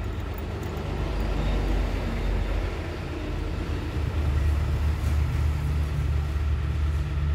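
An engine running steadily at idle, a low hum that grows louder about four seconds in.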